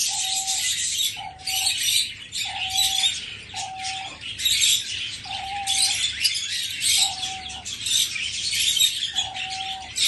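A dove cooing in a wire cage: about seven short, level coos of one pitch, each under half a second, repeated every second or so. They sound over a dense, steady chatter of many small cage birds chirping.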